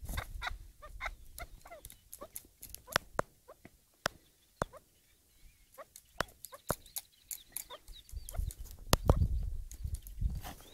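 Caged chukar partridges giving many short, quick clucking call notes, with sharp clicks scattered through. Low rumbling noise comes in near the start and again toward the end.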